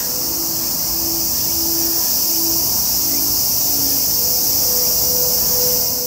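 Dense, steady, high-pitched chorus of cicadas buzzing.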